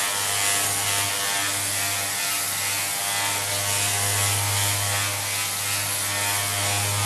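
Electric orbital sander running steadily with 180-grit paper against the milled metal bottom of a machinist vice: a constant motor hum with a dense hiss of abrasive on metal.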